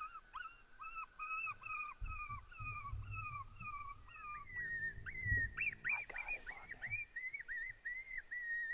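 Electronic predator call playing coyote pup distress yips: a string of short, arching whimpering cries about two a second, changing to a higher, hooked cry about halfway through. A few low thumps around two and five seconds in.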